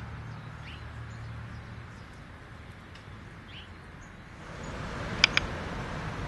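Quiet outdoor background: a steady hiss with a low hum that fades out about two seconds in, and a few faint bird chirps. About five seconds in, two short sharp clicks come close together.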